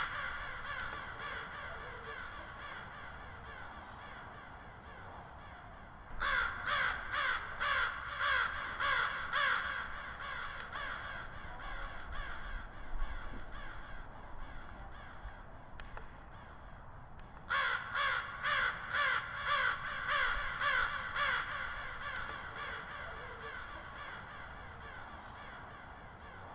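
Crows cawing in two loud runs of quick, evenly spaced caws, about two or three a second, starting about six seconds in and again about eighteen seconds in. Fainter cawing fades away after each run.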